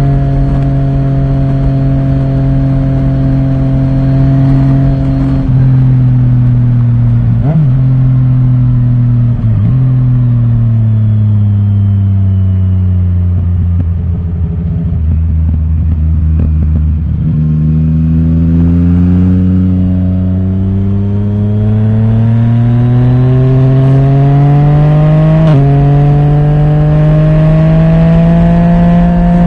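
Yamaha Tracer 900 GT's 847 cc three-cylinder engine through an Akrapovic titanium exhaust with the dB killer removed, heard onboard while riding. It cruises steadily, gives two brief throttle blips, falls in pitch as the bike slows to a low steady note midway, then rises as it accelerates again, with a sudden drop in pitch near the end as it shifts up.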